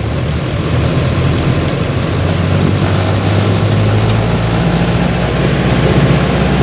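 Diesel engine of a Mercedes-Benz LO 814 bus running steadily while under way, heard from the driver's seat, with tyre and road noise.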